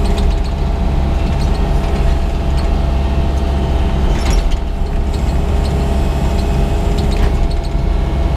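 Excavator diesel engine running steadily under the operator's control, probably a Yanmar, with a couple of short knocks from the machine as it works, about four and seven seconds in.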